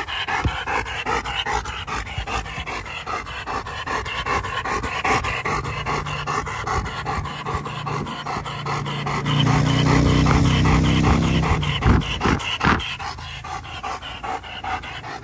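Black German Shepherd panting rapidly and heavily, mouth wide open and tongue hanging out, right at the microphone. A low steady hum swells in under it in the middle and fades again.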